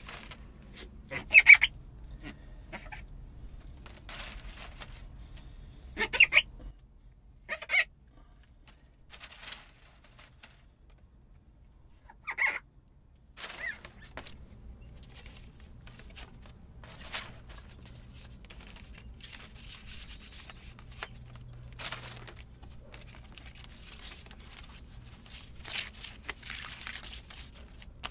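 A handful of short, sharp bird calls a few seconds apart, loudest about a second and a half in, with a last one about twelve seconds in, then fainter background rustle.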